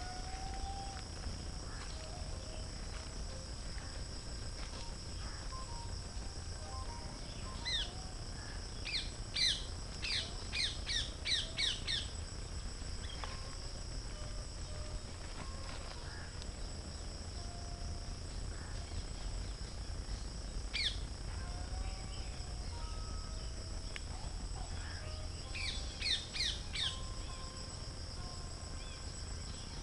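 Steady high-pitched insect drone, with birds calling over it: a quick series of sharp falling notes about a third of the way in and again near the end, and scattered soft whistled notes in between.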